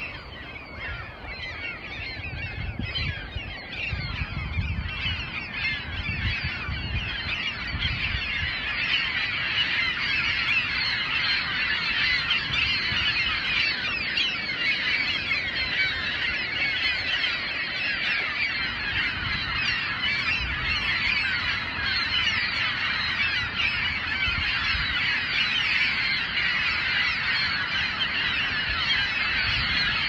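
A large flock of gulls calling all at once as they take off and circle overhead: a dense, unbroken mass of overlapping cries that builds over the first several seconds and then holds. The flock has been put to flight in alarm by a Harris's hawk. A low rumble runs underneath for the first eight seconds or so.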